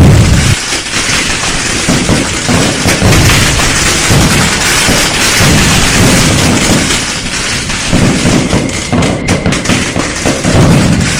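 Dense barrage of firecrackers and fireworks: rapid, unbroken crackling and popping with heavy booms mixed in, loudest at the start and again near the end.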